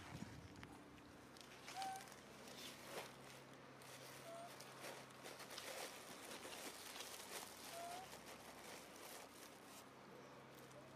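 Faint animal calls: three short, slightly rising squeaks a few seconds apart, over light rustling and scattered soft clicks.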